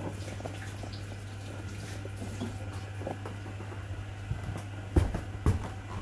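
Whirlpool WFO3P33DLXUK dishwasher running at the start of its cycle: a steady low hum with faint water trickling and ticking inside, and two sharp knocks about five seconds in.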